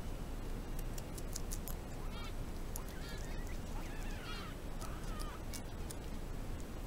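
Guinea pigs squeaking in a string of short, bending chirps for about three seconds from about two seconds in, with a few sharp clicks.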